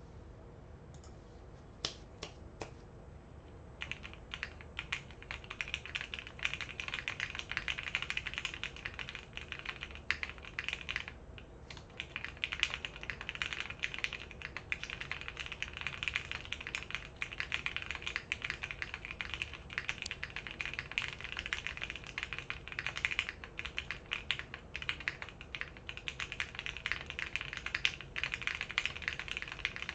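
Nayeon TKL mechanical keyboard with stock Gateron Oil King linear switches, a polycarbonate half plate and NK Blossom keycaps being typed on. A few single keystrokes come first, then fast continuous typing from about four seconds in, with a brief pause a little past the first third.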